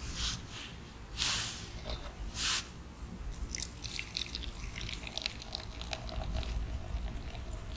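Chewing and mouth sounds from eating baked sweet potato: a few short hissing puffs early on, then a run of small wet, crackly clicks.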